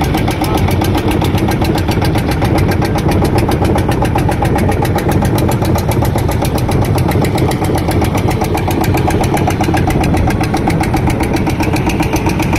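A boat's single-cylinder diesel engine running steadily under way, with a fast, even beat.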